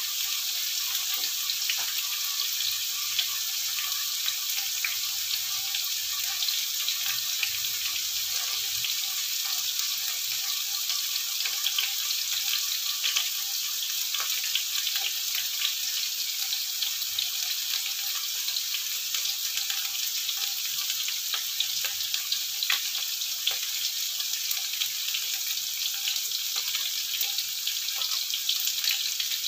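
Slices of white bitter melon, with dried shrimp and small anchovies, frying in oil in a wok: a steady sizzle with many small crackles.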